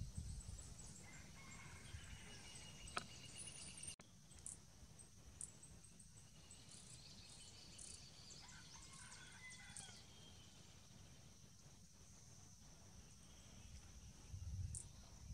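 Faint garden ambience: scattered high, thin bird chirps over a steady high-pitched drone, with a low rumble of wind on the microphone near the end.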